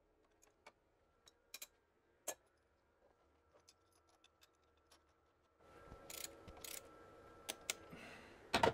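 Scattered light metallic clicks and taps of a spanner and parts being fitted on the camshaft timing gear of a BMW N62 V8, with a faint hiss coming in about halfway through and a sharper double knock near the end.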